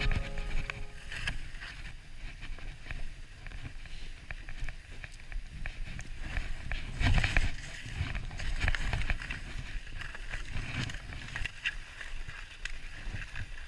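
Skis sliding and scraping over snow on a downhill run, with wind rumbling on the camera microphone. The noise swells and fades unevenly as the skier turns.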